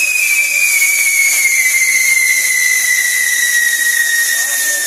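Burning fireworks on a castillo: a steady hiss of spraying sparks with a whistle that slowly falls in pitch.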